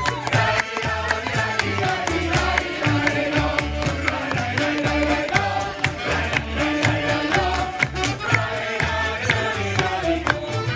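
Live folk-style band playing an instrumental passage between verses of a tramp song: held melody notes over a steady low beat with light percussion.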